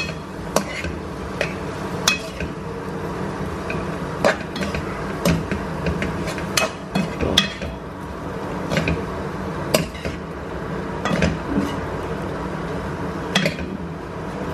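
Metal spatula stirring chicken and broccoli in a metal kadai, scraping and clinking against the pan in irregular knocks about once or twice a second.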